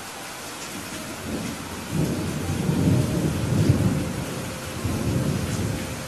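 A low rolling rumble of thunder over a steady hiss of heavy rain. The rumble builds about a second in, is loudest in the middle and dies away near the end.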